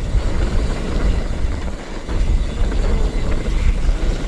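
Wind buffeting the handlebar-view camera's microphone as a full-suspension mountain bike rolls fast down a dirt forest trail, with a deep rumble of tyres and rattle from the bike that swells and dips with the terrain.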